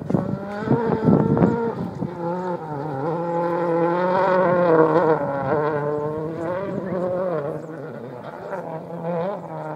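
Ford Fiesta WRC rally car's turbocharged 1.6-litre four-cylinder engine at full effort on a gravel stage, its pitch climbing and dropping repeatedly through gear changes and corners, loudest about halfway through.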